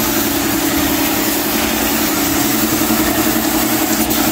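Piston air compressor running steadily with a fast, even pulse, under the hiss of compressed air from a gravity-feed paint spray gun spraying a wood-finish coat onto a steel door jamb. A single click near the end.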